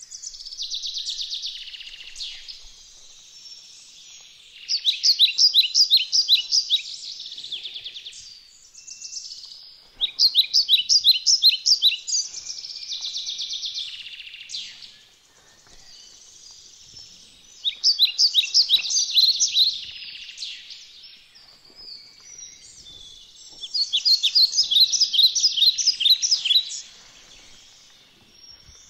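Bird song: four loud phrases of rapid repeated chirps, one about every six seconds, with fainter chirping between them.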